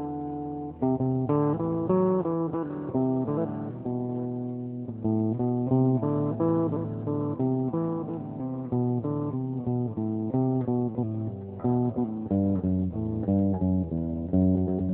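Music on a plucked guitar over a bass line, a steady run of picked notes several per second.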